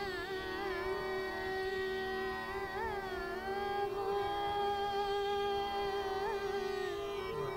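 A woman singing a Khamaj kajri in Hindustani classical style, holding long notes broken by quick ornamental turns, over steady harmonium accompaniment.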